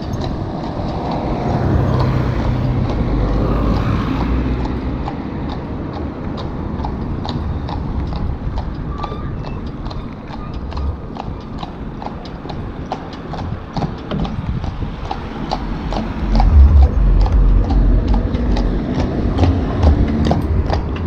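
Road bike rolling along a paved path, heard through a handlebar-mounted camera: a steady run of sharp knocks, about three a second, over wind rumble on the microphone that swells about two-thirds of the way through.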